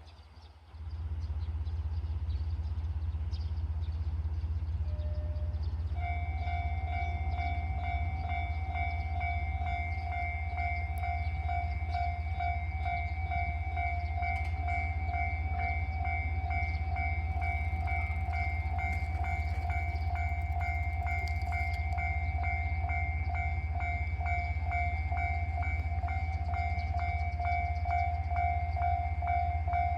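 Japanese railway level-crossing warning bell starting about six seconds in: a rapid, evenly repeating electronic ding, signalling an approaching train. Under it runs a steady low rumble.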